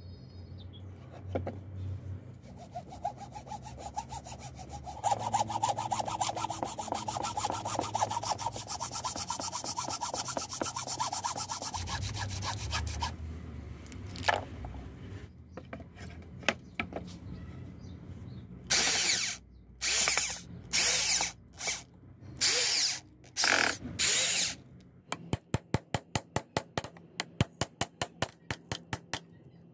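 Metal work on a microwave oven transformer. First comes a long steady cutting noise with a whine, then five long rasping hacksaw strokes, then a fast even run of hammer blows on a steel punch, about three a second, driving out the winding.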